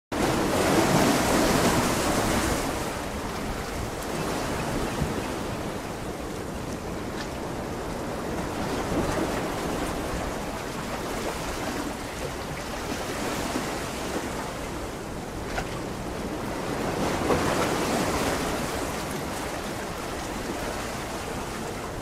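Sea waves washing ashore: a continuous rush of surf that swells louder every few seconds as each wave breaks.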